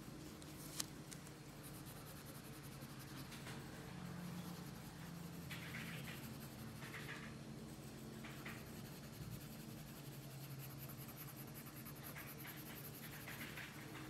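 Colored pencil scratching on paper as yellow is shaded in: faint, in short runs of back-and-forth strokes. There is a single click about a second in.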